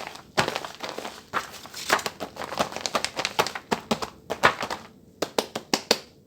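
Paper crinkling and crackling as a handmade paper squishy and its paper wrapping are handled, in quick irregular crackles with a few separate ones near the end.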